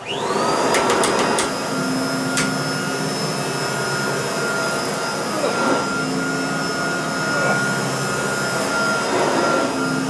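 Kirby Tradition 3CB upright vacuum switching on and spinning up within half a second, then running steadily with a high fan whine while pushed across carpet; its speed switch is held down by an added tab so the fan always runs in high mode. A few sharp clicks in the first couple of seconds.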